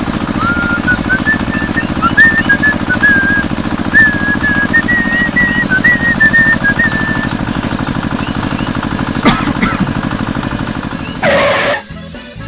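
A steady, rapid mechanical buzz like a small motor or hammer drill running, with a whistled tune over it for the first several seconds. A short louder burst comes near the end before the buzz stops.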